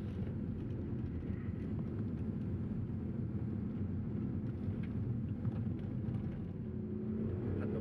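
Steady low rumble of a vehicle driving on a gravel desert track, heard from inside the cabin: engine and tyre noise with faint small rattles from the rough road.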